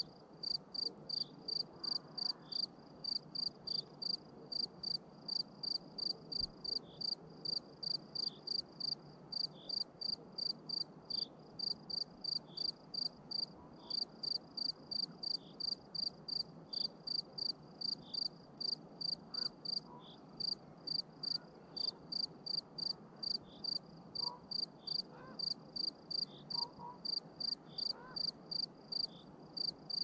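A cricket chirping steadily in an even rhythm, about two short, high chirps a second, over a faint low background hiss.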